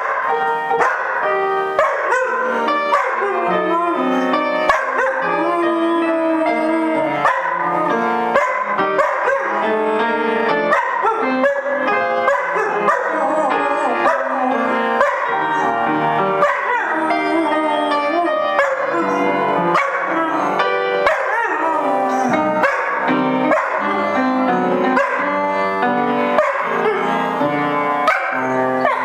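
Upright piano playing, with a Bouvier des Flandres dog vocalizing along, its voice gliding up and down over the notes.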